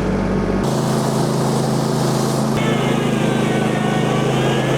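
Small gas engine of a Woodland Mills portable bandsaw mill running steadily at speed, its sound changing abruptly about half a second in and again about two and a half seconds in.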